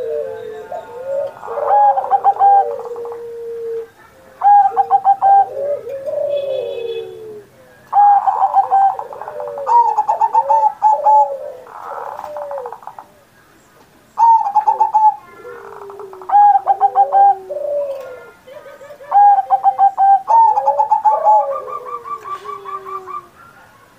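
Zebra dove (perkutut) cooing in full song, phrase after phrase. Each phrase is a rapid stuttering run of notes followed by lower, falling coos, with short pauses between phrases.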